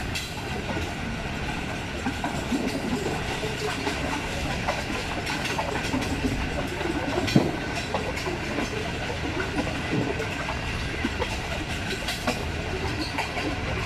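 Passenger coach of an express train running fast over jointed track, heard from its open door or window: a steady rumble and rush of air with the click of wheels passing rail joints, and one sharper knock about seven seconds in.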